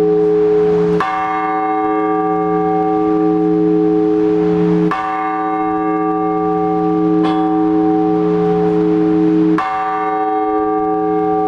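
Orthodox church bells ringing for the all-night vigil. A heavy bell is struck about every four seconds, its deep hum ringing on between strokes, with one lighter stroke in between.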